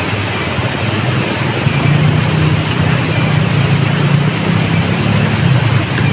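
Steady outdoor rushing noise with a low rumble that swells a little around the middle, and a thin, high, unbroken drone above it.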